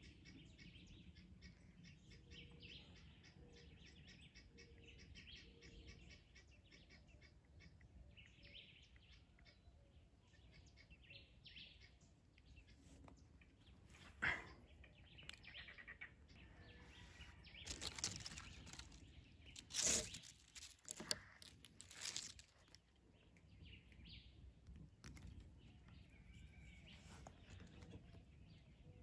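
Faint dry-forest ambience with scattered distant bird chirps. Near the middle comes one sharp click, then a few seconds later a short cluster of louder rustling knocks.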